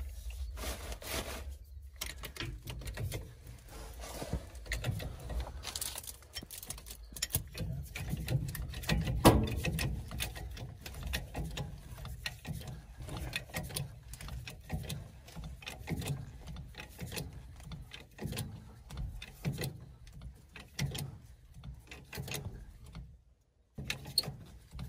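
Scattered metallic clinks, knocks and handling noise from hand work fitting a wheel onto a mobile home axle, with one louder knock about nine seconds in, over a low steady rumble.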